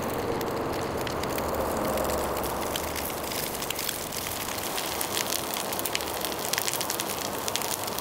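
A long utility lighter's flame held to a round charcoal briquette, which catches and crackles, with rapid small pops growing denser in the second half.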